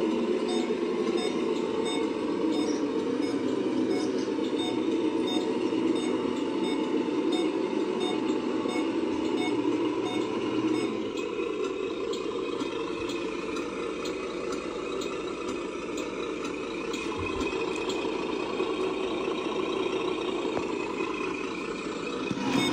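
Radio-controlled Mercedes-Benz truck model running with a sound module's diesel engine sound, while a reversing beeper repeats about twice a second; the beeping stops about halfway through, leaving the steady engine sound.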